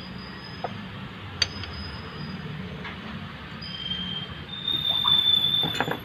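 Metal tools and parts clinking while a new rear axle oil seal is seated in the axle housing with a bearing hub used as a driver. This ends in a high metallic squeal lasting about two seconds, loudest near the end.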